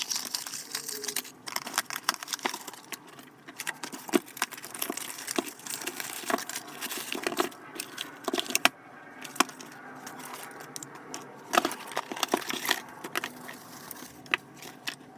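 Irregular clicks, clinks and light rattles of an electronic keypad door lock's metal parts and keys being handled, with a few sharper taps.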